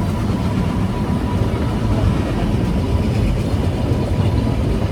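Puffing Billy narrow-gauge steam train rolling along the line, heard from aboard a carriage as a steady low rumble of wheels on rails.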